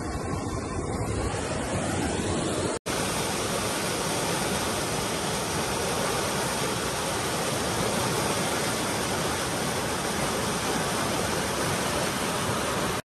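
Swollen, muddy floodwater rushing and churning through a row of metal posts, a steady rush of water noise. A brief dropout about three seconds in breaks it once.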